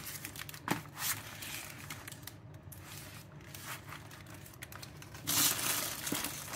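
Handling noise: cardboard boxes of chocolate compound lifted and set down on a table with a few light knocks, and a shopping bag rustling, loudest near the end as a hand reaches into the bag.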